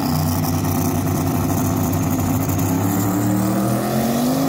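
Two drag cars launching off the line side by side and accelerating hard down the strip, their engines at full throttle, with the pitch climbing near the end.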